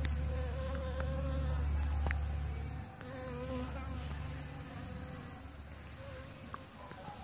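Honeybees buzzing in flight around flowers: a wavering buzz that fades and comes back. A low rumble sits under the buzz and stops about three seconds in.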